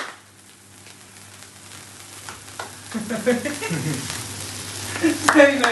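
Sparkler candles on a cake fizzing with a steady hiss that slowly grows louder. People's voices come in from about three seconds in.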